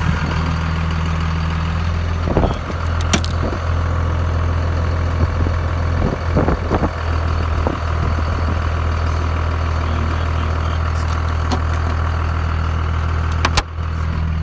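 Dodge Ram's 24-valve Cummins diesel engine idling steadily, with a few short knocks from handling in the cab.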